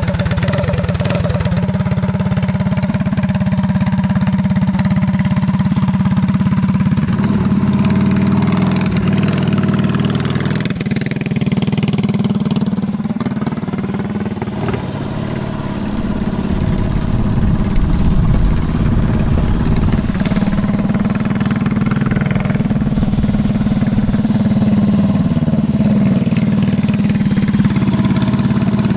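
Tillotson 212 stage 1 single-cylinder engine on a Rascal mini bike, running for the first time since the build and still being broken in, as the bike is ridden. Its pitch rises and falls several times with the throttle. It grows quieter for a few seconds around the middle, then louder again.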